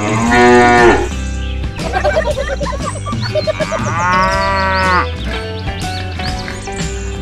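Cow mooing, two long moos about three seconds apart, over background music.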